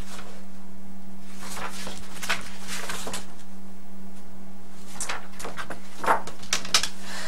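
Steady low hum throughout, with a few short rustles and clicks scattered through; near the end, papers and a folder being handled on a desk.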